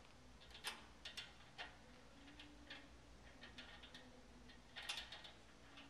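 Faint, irregular clicks and taps of metal steering parts and hand tools as a drag link end is fitted to a tie rod, with a small cluster of louder clicks near the end.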